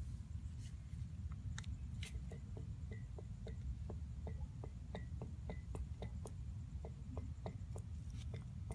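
Toyota FJ Cruiser wheel bearing being turned by hand, giving a regular light clicking about three times a second over a low rumble, with a few sharper clicks near the start.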